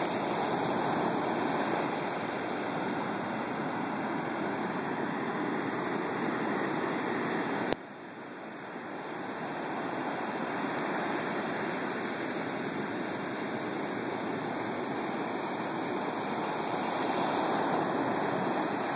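Heavy surf from hurricane storm-surge waves breaking and washing up a sandy beach, a steady rushing wash of water that swells and eases. A sharp click about eight seconds in, after which the surf drops away and builds back up.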